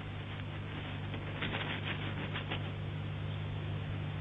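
Steady low electrical hum with hiss from an old, worn soundtrack, a few faint clicks in the middle; no other sound stands out.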